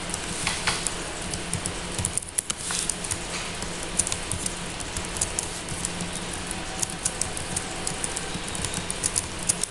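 Irregular clicking of a computer keyboard and mouse as text is edited, over a steady background hum and hiss.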